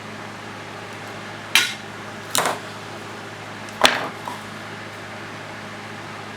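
Three sharp clicks of small tools being handled on a soldering workbench, spread over about two seconds, over a steady low hum.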